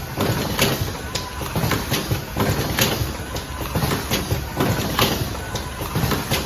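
Vertical automatic cartoning machine running, its pneumatic and mechanical strokes clacking about twice a second over a steady machine noise.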